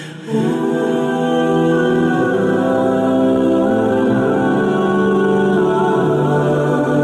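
Calm background music of long held chords, with a short dip in level right at the start.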